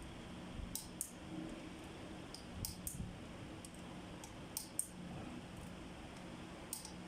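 Sharp light metallic clicks of a hand tool working against a connecting rod cap on a Cummins QST30 diesel engine, mostly in quick pairs, four times over a few seconds, with a steady low hum underneath.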